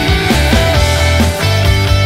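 Background rock music with a steady drum beat and a bass line.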